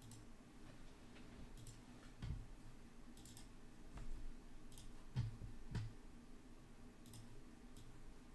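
Faint, irregular clicks of a computer mouse and keyboard, with three soft thumps in the middle, over a low steady hum.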